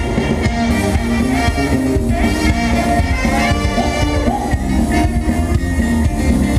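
Live band playing dance music with a steady beat.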